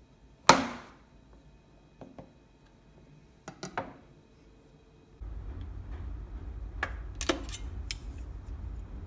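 A chef's knife chops down through cookie dough onto a plastic cutting board with one sharp knock, followed by a few lighter taps of the blade on the board. About halfway through, a steady low rumble begins, with a few more clicks over it.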